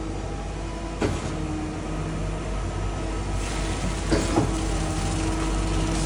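Putzmeister concrete line pump running forward, its engine droning steadily, with knocks about a second in and again around four seconds in as it takes a couple of strokes to push leftover concrete out of the S-tube before washout.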